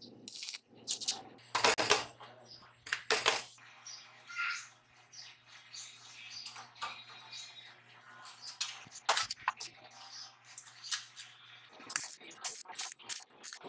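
Steel parts clinking and knocking as a square-tube frame is assembled, with short crackling bursts of stick-welding tack welds. A steady low hum runs under it and stops near the end.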